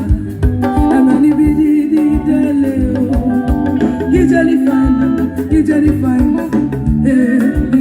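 Live band music with guitar, keyboard and a steady beat, with some singing.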